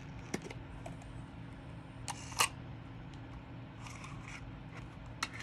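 Faint handling clicks from a Sony MZ-S1 MiniDisc Walkman as its lid is opened: a few short plastic clicks, the sharpest about two and a half seconds in, with a brief rustle of handling near the end.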